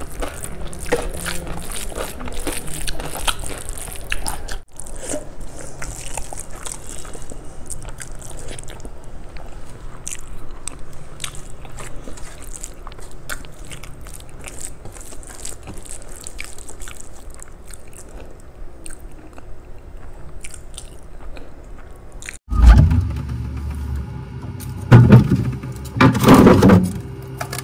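Close-miked chewing and wet mouth sounds of someone eating kadhi rice and pakoras with her fingers, with many small clicks. About 22 seconds in, this gives way to several loud bumps and knocks.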